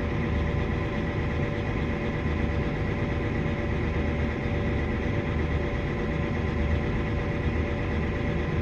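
Grain truck engine running steadily, a constant low rumble with a steady hum over it.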